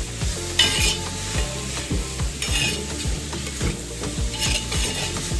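Vegetables stir-frying and sizzling in a pot while a spoon stirs them, with three louder scrapes against the pot about two seconds apart.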